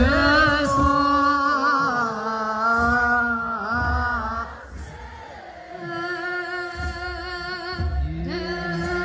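A large choir sings an Ethiopian Orthodox chant in long, held, wavering notes, with deep kebero drum beats every second or two. The singing drops to a brief lull about five seconds in, then resumes.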